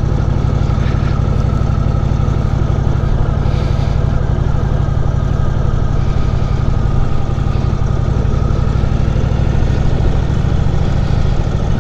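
Indian Chief Vintage's V-twin engine running steadily as the motorcycle is ridden at an even pace, with no revving or gear changes.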